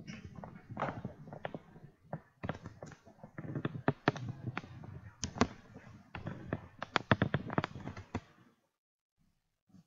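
Irregular taps, knocks and rustling from things being handled close to the microphone, with a quick run of clicks about seven seconds in, stopping abruptly a little after eight seconds.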